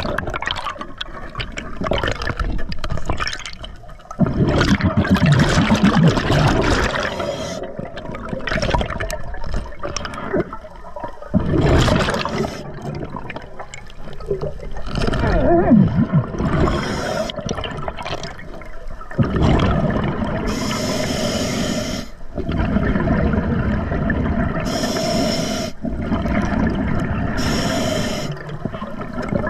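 A scuba diver breathing underwater through an Atomic regulator. Exhaled bubbles gurgle past the camera for a few seconds at a time, alternating with shorter hissing inhalations through the regulator.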